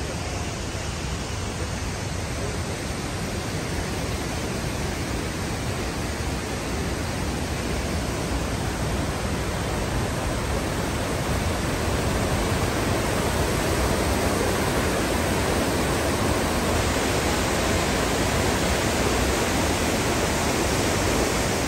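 Snowmelt creek rushing and cascading over boulders, a steady roar of white water that grows louder about halfway through.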